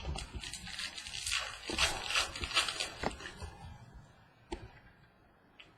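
Baseball trading cards and pack wrapping being handled: about three seconds of crackly rustling and scraping, then a few soft clicks as it dies down.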